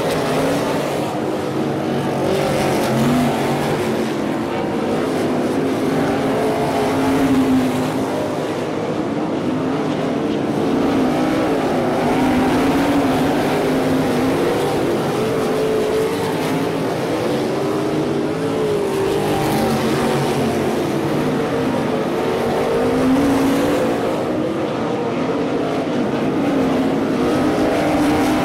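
Several 305 Racesaver sprint cars' V8 engines at race speed on a dirt oval, a pack of overlapping engine notes that rise and fall in pitch as the cars go through the turns and down the straights.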